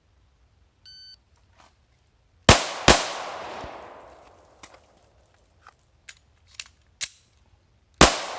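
An electronic shot-timer beep, then two loud pistol shots in quick succession from a Glock 19 9mm, each followed by a long echo. A few fainter sharp pops follow, and another loud shot comes near the end.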